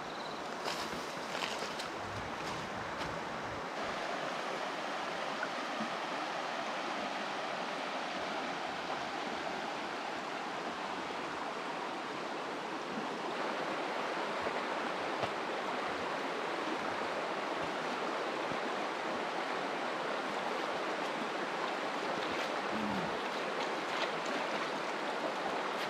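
The Jamieson River's water running: a steady rushing of flowing water, a little louder from about halfway through.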